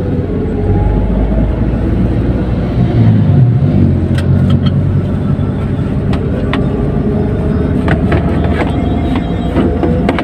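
Car driving, heard from inside the cabin: steady low engine and road rumble with tyre noise, and a few light clicks or knocks.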